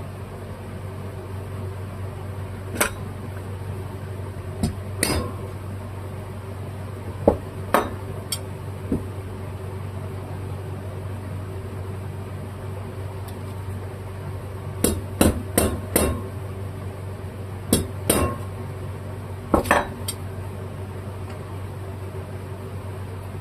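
Sharp light hammer taps on metal: single hits, then a quick run of four, as a sealed part is tapped into a carburetor body to seat it. A steady low hum runs underneath.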